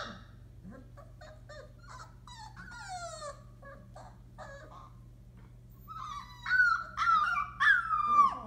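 Young Entlebucher puppies, about four weeks old, whimpering and whining: a few faint high cries, then a louder run of whines that fall in pitch near the end.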